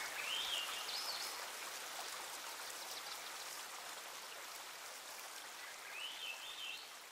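Rushing river water, a steady hiss, slowly fading out. A bird sings a short warbling phrase twice, once just after the start and again near the end.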